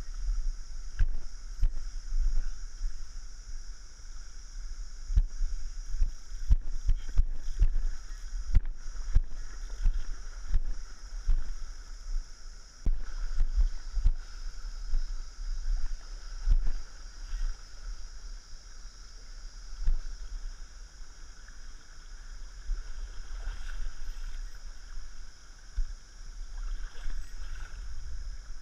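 Shallow stream flowing steadily while someone wades through it: water sloshes and low thuds and knocks come from steps and handling. The thuds come thick in the first half and thin out later.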